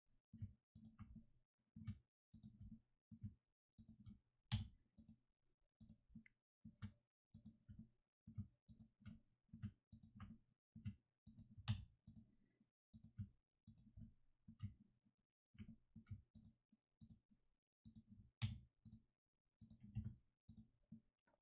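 Faint, irregular clicking of a computer mouse and keyboard, about two clicks a second, as mesh vertices are clicked and keys pressed.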